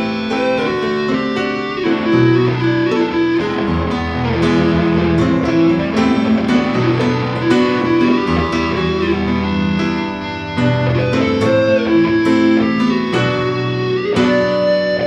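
Stratocaster-style electric guitar playing an instrumental solo of quick picked notes over held low accompanying notes, with no singing.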